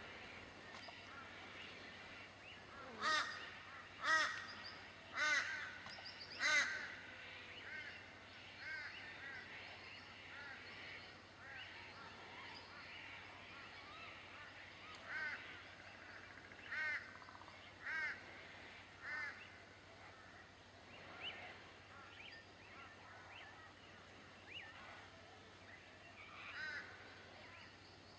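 An animal calling repeatedly in short calls: four loud ones about a second apart a few seconds in, then a run of fainter calls, more widely spaced near the end.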